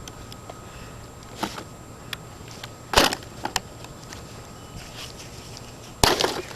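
Two heavy hammer blows on a vacuum cleaner, about three seconds apart, each a loud smash with a brief crunching clatter after it, and a few small knocks between them.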